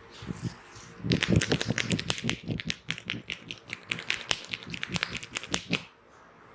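Hands tapping rapidly on the head during a head massage: a quick, irregular run of sharp taps that starts about a second in and stops shortly before the end.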